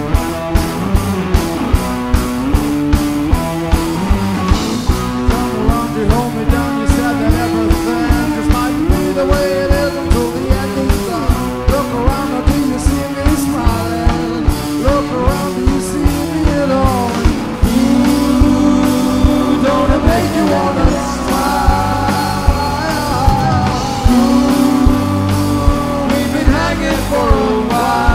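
Live surf-rock band playing a song: electric guitars and keyboard over a drum kit keeping a steady beat, with a lead voice singing.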